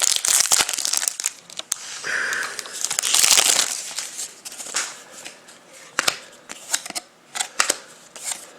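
A trading-card pack's foil wrapper being torn open and crinkled, with a dense crackle at first and another burst of rustling about three seconds in, then a few separate sharp clicks as the cards are handled.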